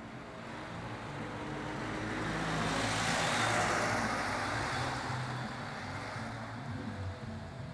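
A motor vehicle passing on the street: its engine and tyre noise build up, peak about three to four seconds in, then fade away.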